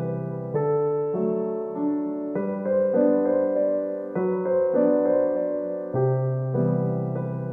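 Background piano music: a gentle keyboard tune, its notes and chords changing about every half second.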